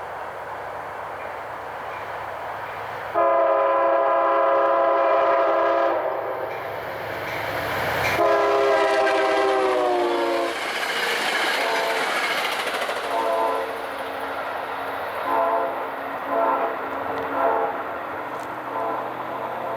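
Passing train's multi-note air horn: a long blast about three seconds in, a second long blast whose pitch drops as the train goes by, then several shorter, quieter blasts. A steady rumble from the train runs underneath.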